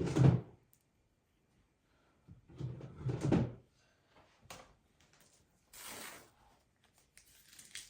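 Rustling and knocking of craft materials being handled, in several separate short bursts with a sharp click midway.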